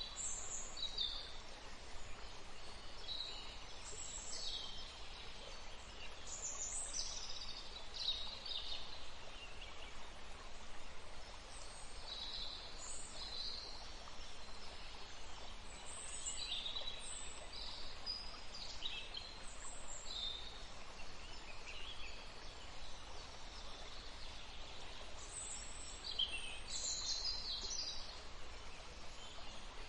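Steady rush of flowing water, with birds chirping over it in many short calls scattered throughout.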